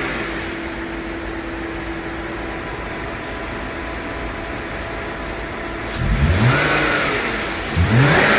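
Volvo V70 engine idling steadily, then revved twice, about six and eight seconds in, the pitch climbing and dropping back each time.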